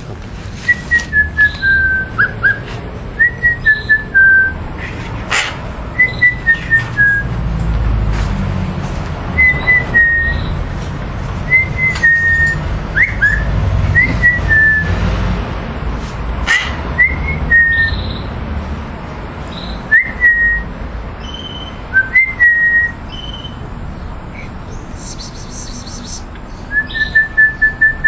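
Pet Eurasian magpie making short whistled notes in groups of two to four, mostly stepping down in pitch, repeated every second or two, with a longer run of even notes near the end.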